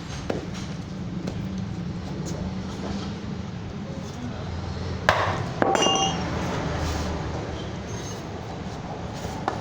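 Metal striking metal during straightening of a warped wheel rim: two sharp clinks about half a second apart, the second ringing briefly, with a few lighter taps, over a steady low hum.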